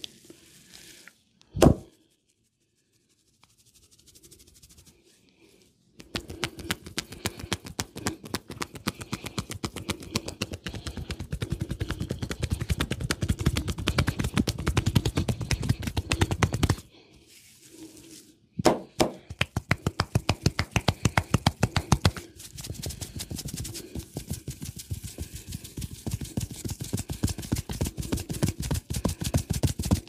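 A barber's hands slapping and tapping rapidly on a client's head and shoulders in a percussive massage, several strikes a second in long runs, with a short pause a little past halfway. One sharp crack sounds about two seconds in.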